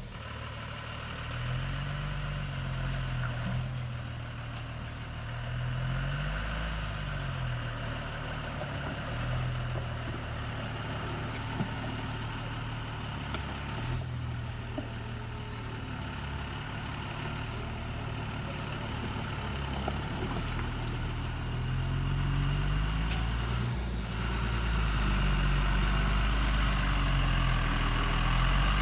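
An engine idling, its low hum rising and falling in pitch in slow swells, growing louder near the end.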